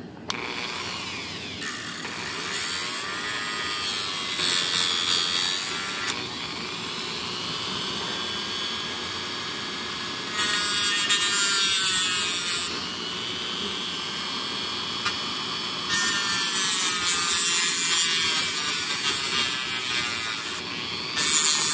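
Small handheld rotary tool running, its pitch dipping and recovering as it bears on the work, with three louder grinding passes in the second half: a plastic or metal linkage adapter clip being ground thinner because it is too thick to clip onto itself.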